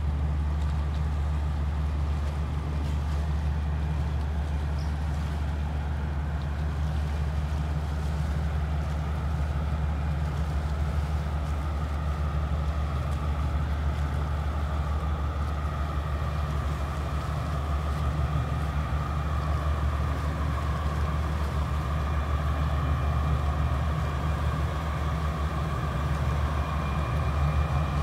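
Large motor yacht's engines running at low speed as it moves slowly past close by: a deep, steady drone with a faint higher whine that grows a little stronger in the second half.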